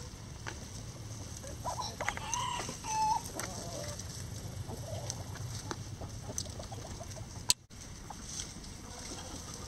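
Free-range chickens clucking, with a few short calls about two to three seconds in and scattered light ticks between them. A sharp click with a brief drop in sound comes about three-quarters of the way through, at a cut in the footage.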